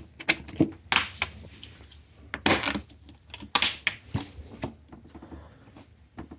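Latches and lid of a socket-set carrying case being opened by hand: a string of irregular clicks and knocks.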